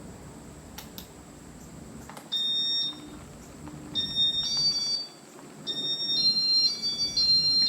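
Casablanca W32 ceiling-fan wall control beeping as demo mode is started: three runs of high electronic tones that step between a few pitches, after two faint clicks about a second in.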